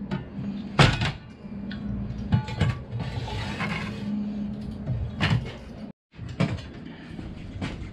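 Sharp knocks and clatter of wood and tools being handled, with a steady low hum and hiss for a couple of seconds in the middle.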